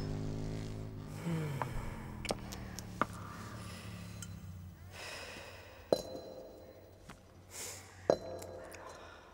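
A few sharp, separate knocks and clicks as small nativity figures are picked up off a stone floor and set down. The louder two come near the end. A held musical chord dies away in the first couple of seconds.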